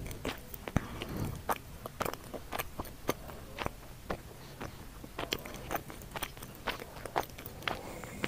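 Small metal tweezers clicking, tapping and scraping against tiny dishes and pieces of food, a few irregular sharp clicks a second.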